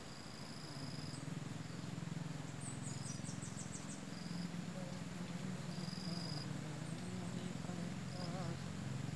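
Insects calling: short high-pitched chirps here and there, and a quick run of ticks about three seconds in, over a steady low hum.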